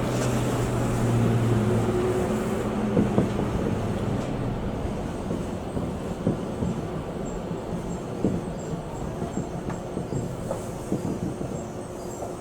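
Electric commuter train running on the line, heard from inside at the front: a steady running hum with a low motor tone that fades after the first couple of seconds, and occasional sharp wheel clicks over the rails. The sound grows gradually quieter.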